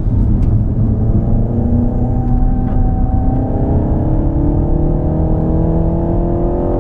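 Renault Mégane RS's 1.8-litre turbocharged four-cylinder engine under acceleration on track, its note rising steadily through the revs from about a second and a half in, over a steady low rumble.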